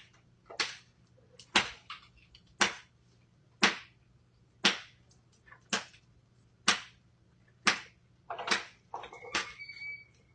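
Sharp cracks on ice, evenly spaced about once a second, each dying away quickly, with a short high squeak near the end.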